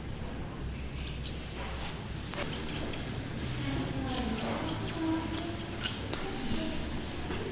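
Grooming scissors snipping through a dog's coat: a series of short, sharp cuts, coming in quick clusters of two or three.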